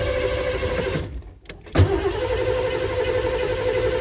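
1985 Ford Econoline van's engine being cranked by the starter with a steady whine; it turns over but never catches. It cranks for about a second, stops briefly, then cranks again from just before two seconds in.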